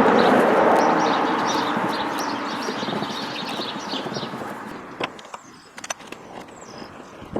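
Road noise of a passing vehicle fading away over about four seconds, with small birds chirping, then a few light clicks and knocks.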